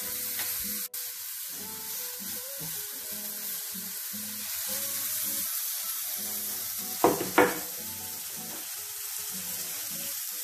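Lamb chops and carrot sticks sizzling steadily on a hot charcoal grill grate, over soft background music. About seven seconds in there are two short, sharp louder sounds.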